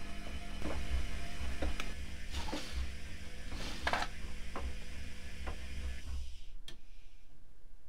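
Privileg Classic 30612 front-loading washing machine in its main wash: the drum tumbles laundry through soapy water, with a low motor hum, sloshing and scattered clicks. The drum stops about six seconds in, leaving a few clicks.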